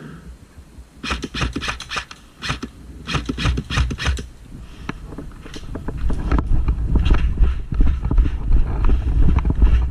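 A player moving during an airsoft game: quick footsteps, knocks and scraping of gear, in clusters of rapid clicks, with rumbling from movement on the mic growing louder in the second half.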